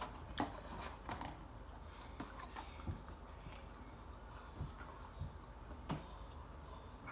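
Faint close-up chewing of chicken nuggets, with scattered soft mouth clicks and wet smacks over a low steady hum.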